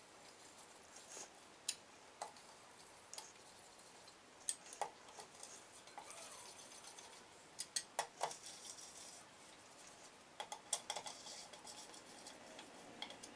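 Faint metal clinks and clicks of a spanner on the nuts of a Bajaj Pulsar 220F engine as they are tightened, coming in short scattered bursts.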